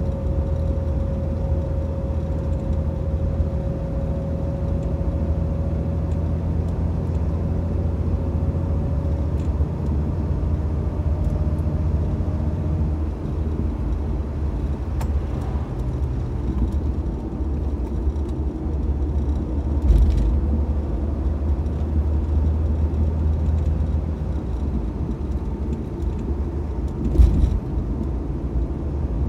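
Old Mitsubishi Debonair driving at a steady pace: a constant low rumble of engine and road, with a whining tone that fades away over the first several seconds. There are two brief thumps, about two-thirds of the way in and near the end.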